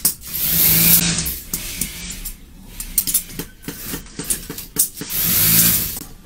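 A mask-making machine running in two bursts of about a second each, a hiss over a steady motor hum, with clicks and rustling in between.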